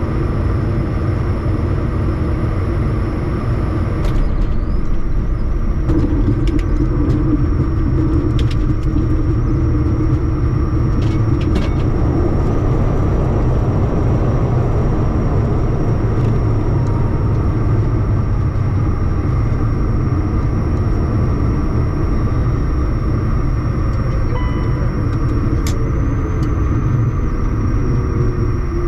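Steady low rumble of a Bombardier Challenger 350 jet with its engines running, with a few faint clicks. A faint tone slowly falls in pitch near the end.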